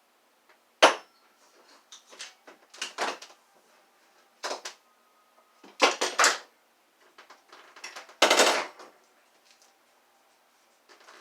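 Clanks, knocks and scraping from working a vacuum cleaner wand apart by hand. A sharp clank with a brief metallic ring comes about a second in. Scattered knocks follow, another ringing clank comes around six seconds, and a longer scrape comes about eight seconds in.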